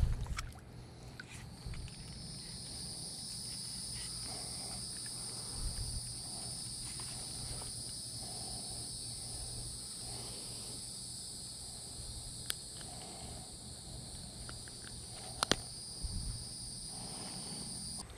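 Steady high-pitched insect chorus, an even drone that sets in a second or two in, with a couple of sharp clicks about twelve and fifteen seconds in.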